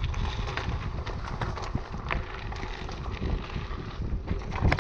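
Wind rushing over the microphone of a camera on a tandem bicycle as it rolls along a bumpy dirt track, with frequent sharp clicks and rattles from the bike and its tyres.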